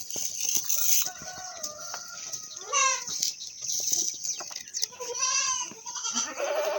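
Goats bleating: three separate calls, one about three seconds in, one about five seconds in and one at the end, over a steady high hiss.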